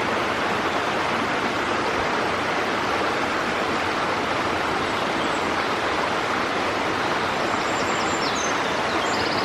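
Steady rushing of a tall waterfall, water falling about 220 feet down a rock face, close by.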